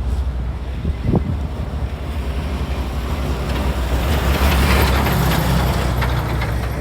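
A motor vehicle's engine running with a steady low rumble, and a rush of noise that swells and fades about halfway through.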